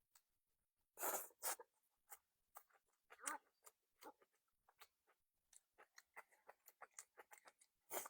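Close-up eating sounds: chewing with a string of small, irregular wet mouth clicks. There are a few louder, brief bursts about a second in, around three seconds in, and near the end.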